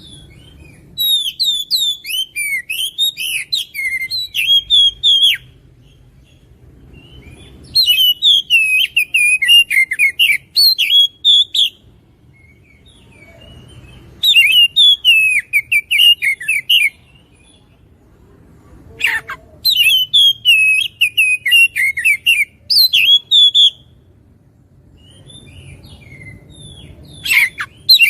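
An oriental magpie-robin (kacer) singing in full song: five loud phrases of rapid, varied whistled notes, each a few seconds long, with short pauses between them.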